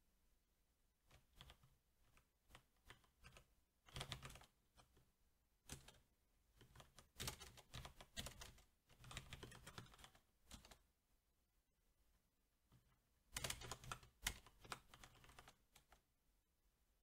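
Typing on a SteelSeries 6Gv2 mechanical keyboard with Cherry MX Black switches: irregular runs of keystroke clicks with short pauses. The densest clusters come about four seconds in and again around thirteen to fourteen seconds.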